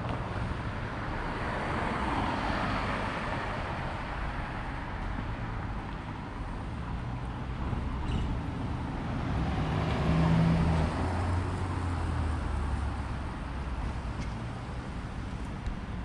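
Street traffic: vehicles passing on the road in a steady wash of road noise. Two passes stand out, one a few seconds in and a louder one about two-thirds of the way through with a low engine hum.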